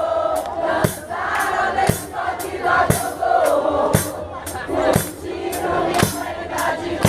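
Samba batucada percussion group playing a steady beat, the loudest drum hits landing about once a second with lighter strokes between them, while a crowd sings along.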